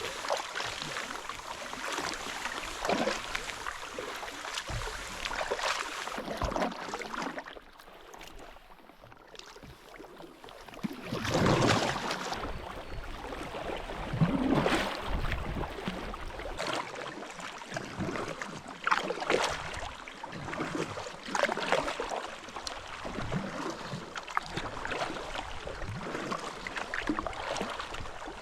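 Paddle strokes on lake water from a small paddled boat: a wash of water noise with louder splashes every few seconds and a quieter lull about eight seconds in.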